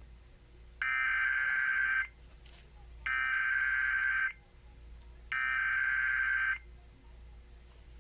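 Emergency Alert System SAME header: three identical bursts of raspy, warbling digital data tone, each a little over a second long and about two seconds apart. The header opens a new alert, here a severe thunderstorm warning.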